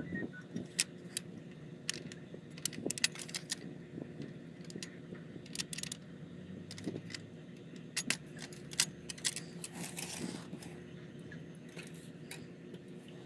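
Small metal tools and parts clicking and clinking irregularly as they are handled.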